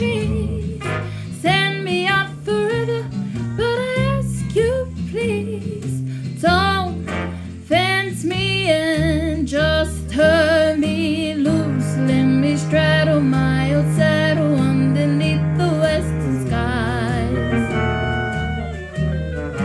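Music: guitar accompaniment under a wavering melody line with vibrato.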